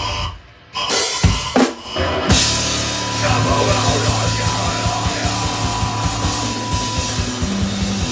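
A three-piece instrumental band playing live with drums and cymbals. The band cuts out for a moment about half a second in, a few hard drum hits follow, and then the full band comes back in and plays on steadily.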